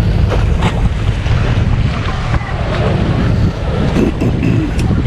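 Wind buffeting the action camera's microphone: a loud, fluttering low rumble, with a few faint clicks and knocks about.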